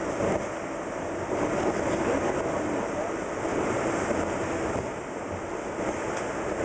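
Steady running noise of a Metrorail train car in motion, heard from inside the passenger car.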